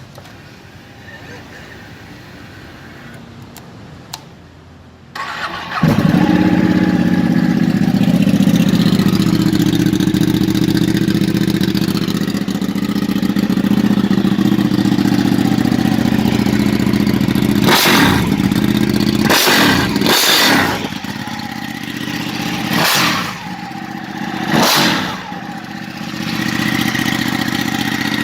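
Ducati Panigale 899's 898 cc Superquadro V-twin starting: after a few seconds of low sound with faint clicks it cranks briefly and catches about five seconds in, then idles steadily. Past the middle it is blipped five times in quick sharp revs, each falling straight back to idle.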